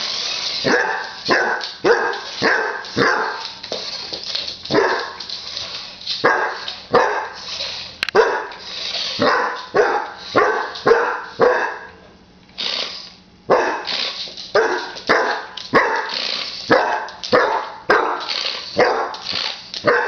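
A dog barking over and over at a remote-control toy car, about two sharp barks a second, with a short break about twelve seconds in.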